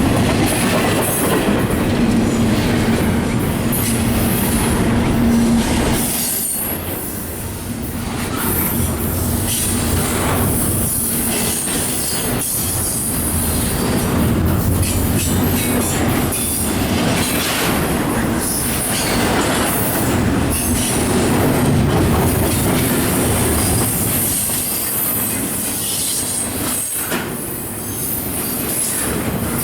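A freight train's cars roll past loud and steady, with repeated clacks from the steel wheels passing over the rail throughout.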